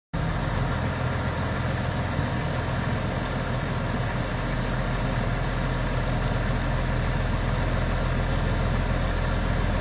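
Large diesel tractor engines of a John Deere and a Steyr 6225 running steadily, a deep even engine note with no revving.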